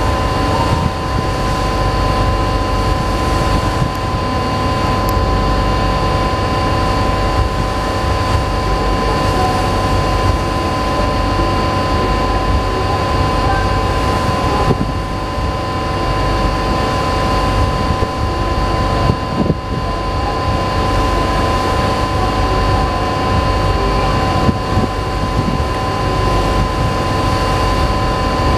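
Steady drone of ship engines with a few held tones above it, over a low rumble of wind and water.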